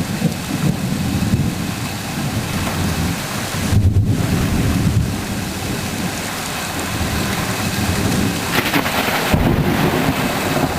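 Thunderstorm: steady rain with low rolling thunder, the rumble swelling about four seconds in and the rain hiss growing brighter near the end.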